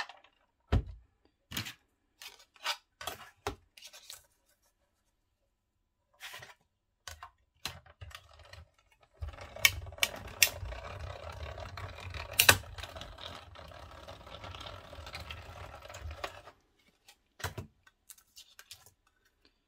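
Small hand-cranked die-cutting machine being cranked, pulling a plate sandwich with a metal die through its rollers to cut design paper: a steady rumble for about seven seconds, with a few sharp clicks in it. Before and after, light clicks and taps of the die and acrylic plates being handled.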